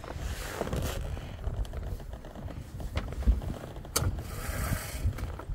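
Wind rumbling on the microphone aboard a small sailboat, with a few sharp clicks from the boat's fittings about three and four seconds in, and two short rushes of hiss.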